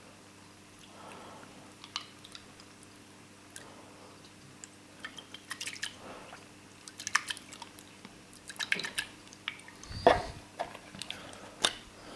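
Small plastic clicks and taps from handling an ammonia test kit's reagent bottles and test tube, with one louder knock about ten seconds in.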